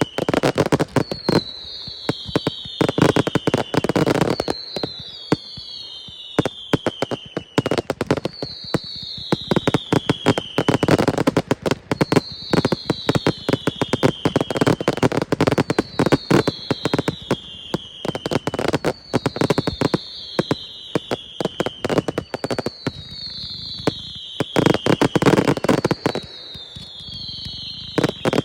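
Large professional fireworks display: a dense run of bangs and crackling with heavy booms every few seconds, and whistles falling in pitch, one or two every couple of seconds.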